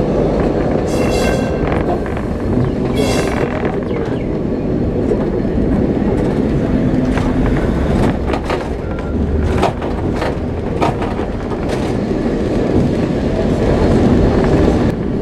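Lisbon tram running on street rails, heard on board: a steady rumble of wheels on the track. Two brief high-pitched squeals come about one and three seconds in, and sharp clicks and knocks are scattered through the middle.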